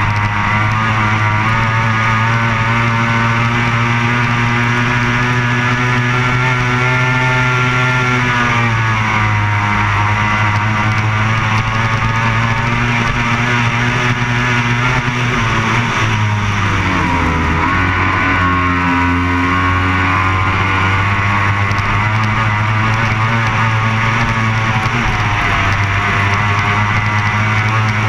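Racing powerboat engine running hard on the water. Its pitch dips and recovers about a third of the way in, and again for a few seconds past the middle, as the throttle eases through turns.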